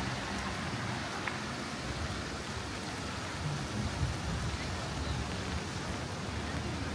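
Steady rain falling, an even hiss, with a faint low rumble underneath.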